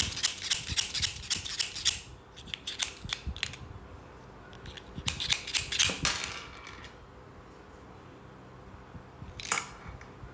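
White Industries Aft Tracker rear cassette hub's freehub ratcheting as it is turned: a quick run of clicks that thins out and stops about three and a half seconds in, a second short quick run about five seconds in, and a single click near the end.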